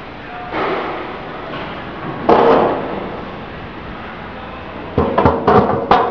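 Metal knocks and clangs from parts of a potato washing and peeling machine being handled as its rollers are changed. A soft bump, then a louder ringing hit about two seconds in, then a quick run of four or five knocks near the end.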